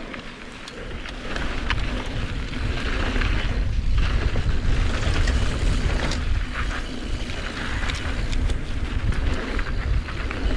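Wind rushing over an action camera's microphone on a mountain bike riding downhill, with the rumble of tyres rolling over the dirt trail. It builds over the first couple of seconds, and occasional sharp clicks and rattles sound through it.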